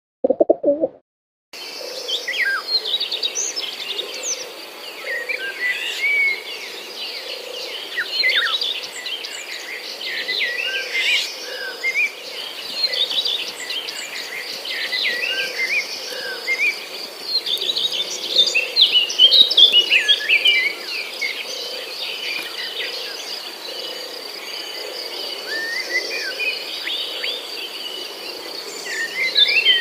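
Many small birds chirping and twittering all at once, over a steady high trill. It starts about a second and a half in.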